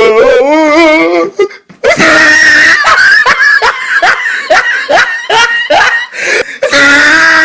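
A person laughing hard in a high, shrill voice: a wavering squeal at first, then a long run of short 'ha' bursts about three a second.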